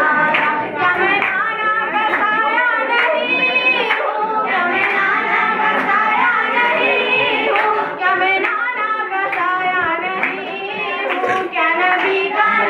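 Schoolgirls singing a song into a microphone, with hand claps along with it.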